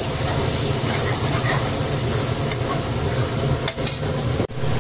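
Tomato paste and onion-ginger-garlic masala sizzling in hot mustard oil in a metal kadhai, stirred and scraped with a metal ladle as it is fried (bhuna). The sound drops out for an instant near the end.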